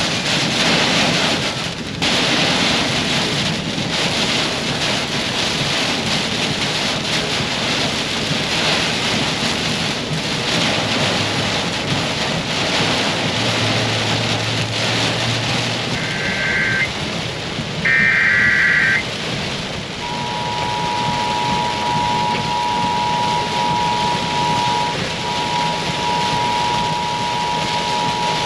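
Heavy rain falling hard on a 1996 Ford Bronco's roof and windshield, heard from inside the cab while driving. About sixteen seconds in, the radio sends two short Emergency Alert System data bursts. A few seconds later the steady two-tone EAS attention signal begins, the start of a tornado warning broadcast.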